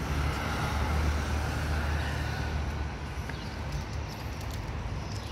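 A motor scooter passes along the street, its engine and tyre noise loudest a second or two in and then fading into general traffic noise.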